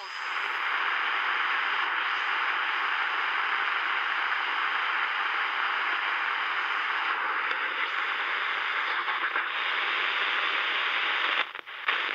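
Sony ICF-SW10 shortwave receiver's speaker giving a steady hiss of static, tuned off any station while the dial is turned across the shortwave bands. The hiss cuts out briefly near the end as the band switch is moved, then comes back.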